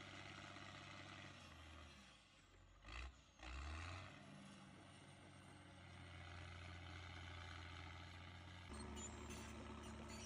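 Near silence: a faint low hum, with two brief soft low bumps about three to four seconds in.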